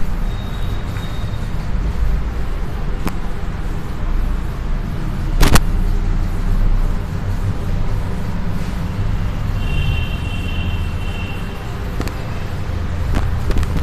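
Chalkboard duster rubbing across a chalkboard, wiping off chalk writing, over a steady low rumble. A sharp knock about halfway through and a few lighter clicks.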